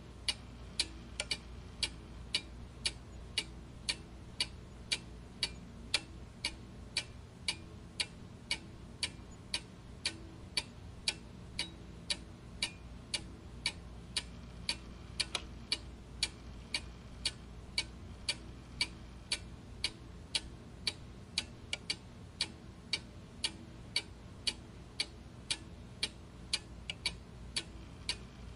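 A clock ticking steadily, about two sharp ticks a second, over a low steady background noise.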